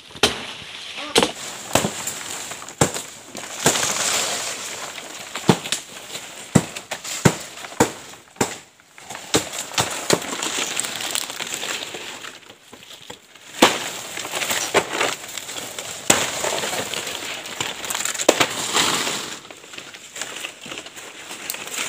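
Machete chops and sharp snapping cracks as toko palm fronds are cut, with loud rustling and crackling of the large stiff fan leaves being handled.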